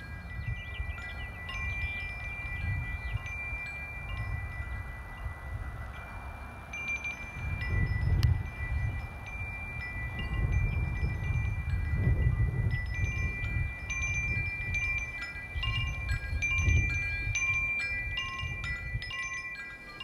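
Wind chimes ringing on a few fixed high notes that come and go, over wind gusting on the microphone.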